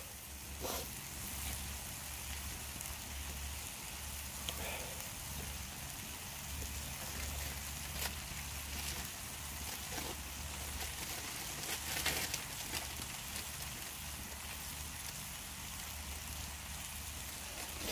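Food sizzling steadily in a pan over campfire coals on a high heat, with a few scattered crackles from the fire.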